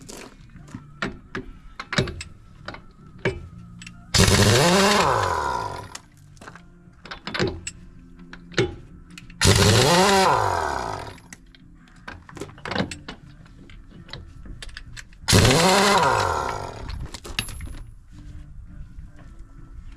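Impact wrench run in three bursts of about two seconds each on a truck wheel's lug nuts, its motor pitch rising then falling each time, with short clicks and clatter between the bursts.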